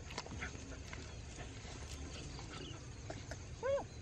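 A dog gives one short whine near the end, rising and then falling in pitch, over faint rustling of footsteps through grass.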